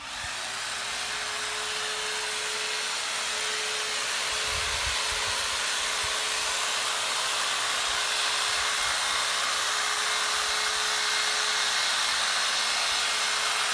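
Corded electric hedge trimmer switching on and running steadily with a single steady whine over a hiss, its reciprocating blades cutting along the bottom of a hedge.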